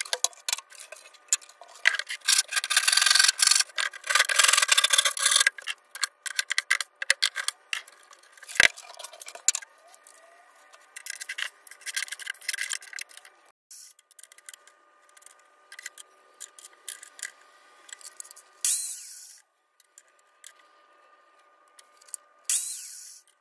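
Hand-tool work on a workpiece: rubbing and scraping strokes with many small clicks, loudest for a few seconds near the start, with one sharp knock. Two short hissing bursts come near the end.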